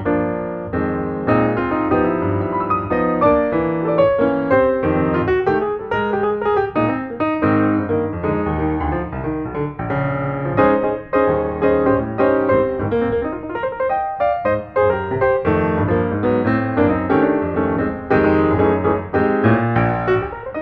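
Background piano music, many notes played in a running pattern.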